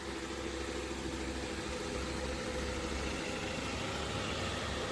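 MOVA S10 Plus robot vacuum running as it cleans the floor: a steady hum with a few held tones.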